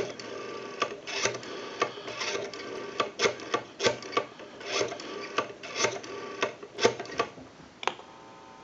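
Rotary dial of a Western Electric 500 desk telephone being wound round and spinning back for one digit after another, a rubbing, whirring mechanical sound broken by sharp clicks. It goes quieter shortly before the end, once the dialling is done.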